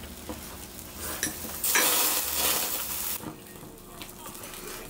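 Skewers sizzling as they cook on a hot pan at the table, with a few light clicks of skewers or utensils against the pan. A little under two seconds in, a loud burst of hissing sizzle lasts about a second and a half, then dies back to a low sizzle.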